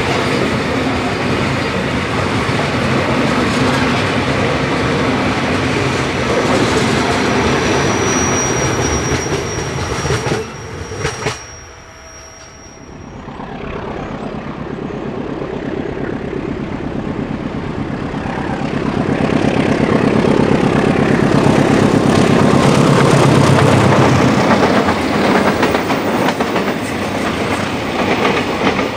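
A long coal train of open wagons rolls past with a steady clickety-clack of wheels over rail joints. After a sudden cut, a diesel locomotive approaches and runs past close by, its engine loudest at the middle of the pass. Hopper and tank wagons then roll by behind it.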